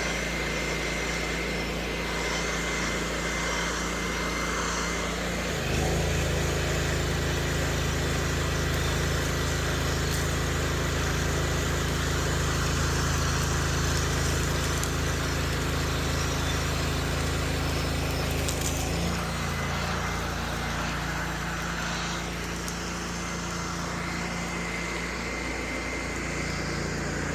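Pressure washer engine running steadily under the hiss of water spraying. The engine note gets louder and fuller about six seconds in and drops back about nineteen seconds in.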